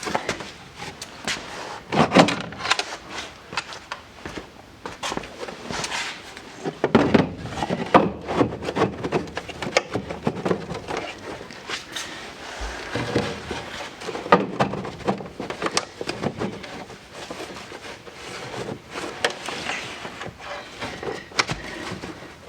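Hard plastic air filter box being handled and fitted: irregular knocks, clicks and scrapes of plastic parts, heaviest about two seconds in and again around seven to eight seconds.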